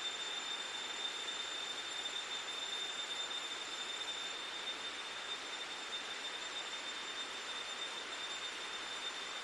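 Steady drone of rainforest insects: a constant high-pitched whine over an even hiss.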